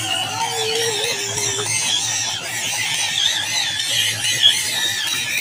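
WPL D12 RC pickup truck's electric motor and gearbox whining, the pitch wavering up and down with the throttle as it drives through muddy water, with one sharp tick about four and a half seconds in.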